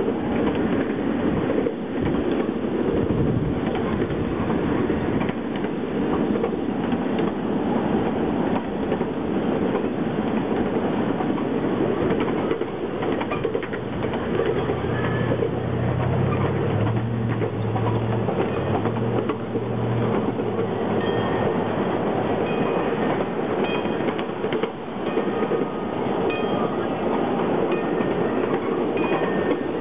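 Train running along the track, a steady rumble of wheels on rails with frequent small clicks, and a low hum for about six seconds in the middle.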